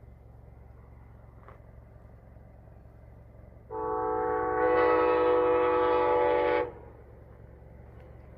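A train horn sounding one steady blast of about three seconds, starting nearly four seconds in and growing louder partway through, over a low steady background rumble.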